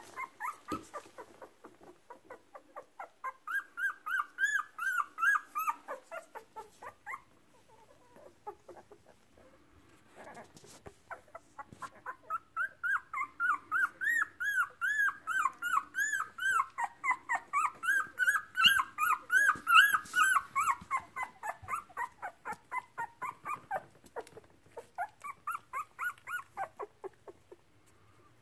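Two-week-old Brittany puppy whimpering in rapid strings of short high squeaks, about four a second: one bout a few seconds in, then a longer, louder bout through the second half.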